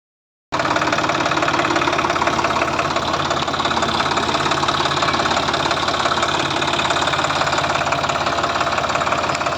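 Diesel engine of heavy machinery running steadily at a constant speed with a fast even chug, starting about half a second in.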